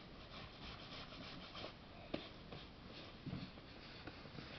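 Faint scattered rustling and light ticks, with one sharp click a little past two seconds in and a soft thud about a second later.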